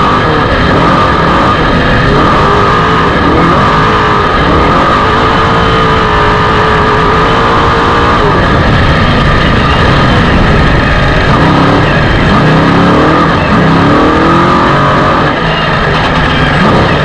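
Off-road race vehicle's engine running hard, its pitch rising and falling again and again with the throttle, over a loud, constant rumble.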